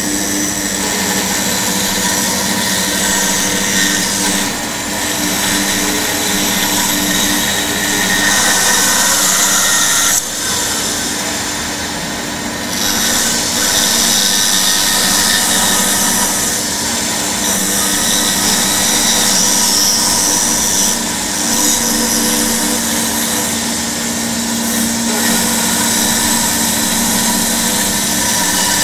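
Bandsaw running and cutting curved fish shapes out of a softwood board, a steady machine hum with the cutting noise wavering as the wood is fed through the blade.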